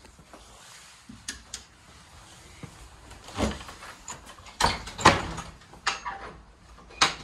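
A door being handled: a string of knocks and bumps, the loudest a little past halfway.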